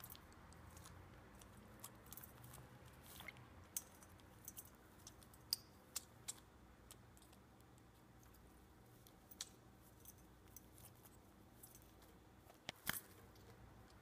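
Faint, scattered sharp clicks and small splashes from a Pacific parrotlet bathing in a metal water dish, with a louder click about five and a half seconds in and another near the end.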